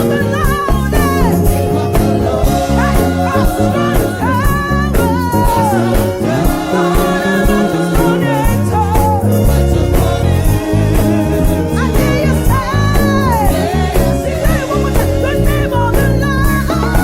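Live gospel praise music: a band with a steady bass and drum beat, with singing that slides in pitch over it.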